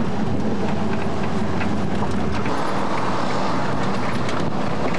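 Vehicle engine running with wind rumbling on the microphone, as heard riding in an open vehicle. The sound is steady and loud, with a low hum and scattered small clicks and knocks.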